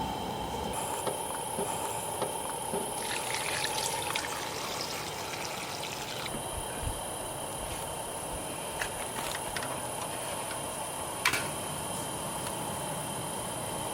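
Steady trickling water, with a constant high whine that drops out for about two seconds near the middle and returns. A few light clicks, one sharper about eleven seconds in.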